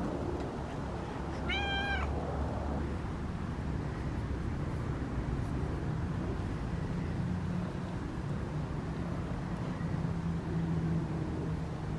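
Tabby cat giving one short meow, rising then falling in pitch, about a second and a half in, over a low steady rumble of the cat purring as it is petted close to the microphone.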